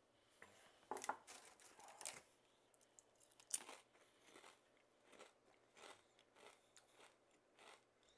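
A person biting into and chewing a kettle-cooked potato chip: a few sharp crunches in the first few seconds, then fainter, even chewing crunches about every half second.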